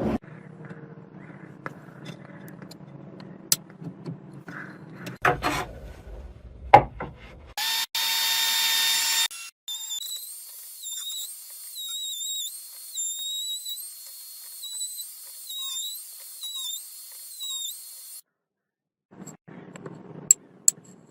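Electric wood router running with a high whine whose pitch dips and recovers over several seconds, after a few sharp knocks from handling wood and tools.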